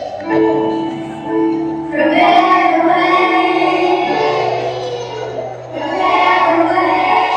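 Group of 3- and 4-year-old children singing together over a sustained instrumental accompaniment with a bass line. The voices swell in about two seconds in and again near the end.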